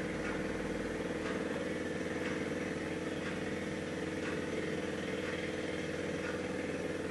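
A steady mechanical hum with several unchanging tones over a soft even hiss, at a constant level throughout.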